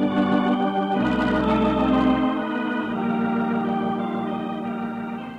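Organ music bridge: sustained chords that change a few times and fade out near the end, marking a scene change in the radio drama.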